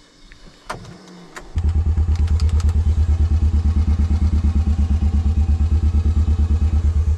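Small engine turning over on a 12-volt electric starter, starting about a second and a half in after a couple of sharp clicks: a loud, fast, even chug of about nine beats a second that never catches. It isn't firing; it doesn't seem to be getting anything.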